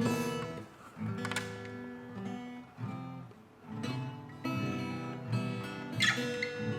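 Acoustic guitar playing slow strummed chords, with short pauses between the strums.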